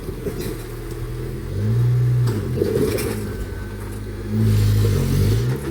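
Off-road Maruti Gypsy's engine revved up hard twice, about two seconds in and again near the end, dropping back to lower revs in between, with a few sharp knocks.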